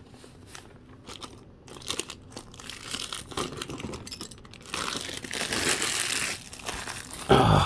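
Plastic bag crinkling as it is handled: a few scattered small clicks at first, then a stretch of continuous crinkling from a little past the middle. A brief voice comes in at the very end.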